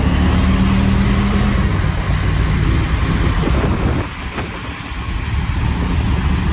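Car engine and road noise from inside a car running at highway speed, a steady low drone with a faint high whine over it. The level dips briefly about four seconds in.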